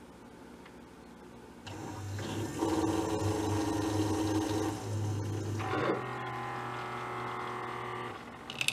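Keurig single-serve coffee maker starting its brew cycle: its water pump hums on about two seconds in and changes pitch about halfway through, and near the end the first sputters of hot coffee hiss out into the cup.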